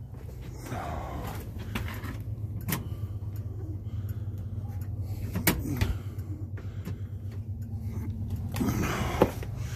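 A steady low hum with a fine regular flutter, broken by two sharp knocks about three and five and a half seconds in.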